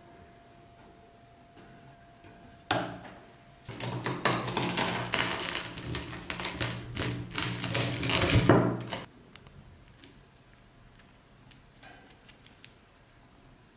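Antique hand-lever bread slicer's curved steel blade cutting through a crusty loaf: a sharp click, then about five seconds of loud crackling crunch of the crust that stops abruptly.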